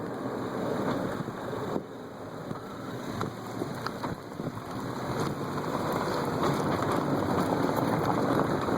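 Chevrolet Corsa driving over rough paving, with tyre and road rumble, a dense patter of small knocks and rattles, and wind buffeting the phone's microphone. The noise grows louder from about halfway through.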